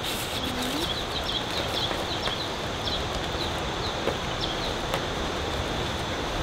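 A small bird chirping over and over in short high notes, against a steady rushing background noise.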